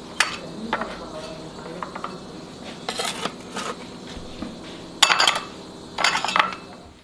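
Utensils clinking against a pot and bowls in short clusters of sharp clinks, the busiest runs about five and six seconds in.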